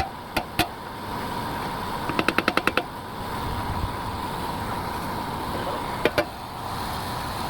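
Sharp knocks over a steady background with a faint high hum: two single knocks, then a quick rattle of about eight strikes a little after two seconds in, and a pair of knocks about six seconds in.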